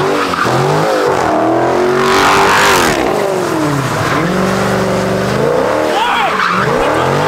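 Dodge Challenger SRT's V8 revving up and down as the car spins donuts, its rear tyres squealing on the asphalt. The tyre squeal is loudest about two to three seconds in.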